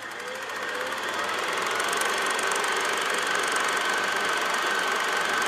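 Logo-intro sound effect: a steady mechanical whirring rattle with fast fine ticking, swelling over the first two seconds and then holding level, with a thin high tone running through it.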